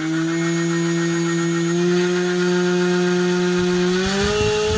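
FPV Model MC2204 2300 kV brushless motor spinning a 5030 propeller on a 3S LiPo on a thrust test stand, being brought up toward half throttle: a steady whine that steps up in pitch about four seconds in, joined there by a low rushing noise.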